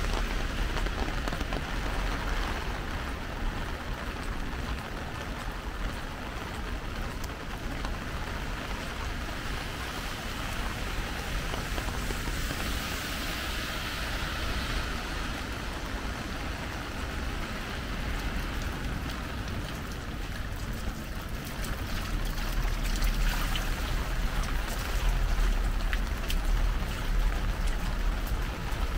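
Steady rain on wet pavement, with car tyres hissing on a wet road and a low rumble that grows louder in the last few seconds.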